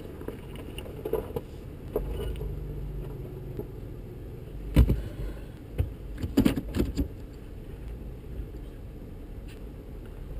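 Low engine rumble of vehicles on a rocky off-road trail, heard from inside a 4x4's cab as a dark pickup drives past and pulls ahead. About halfway through there is one sharp knock, the loudest sound, and a second or so later a cluster of rattling clicks like loose metal jangling.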